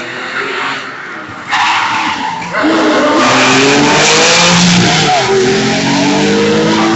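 Air-cooled flat-six of a classic Porsche 911 rally car at full throttle as it passes close by. The engine note climbs from about two and a half seconds in and is loudest in the middle, then stays high to the end.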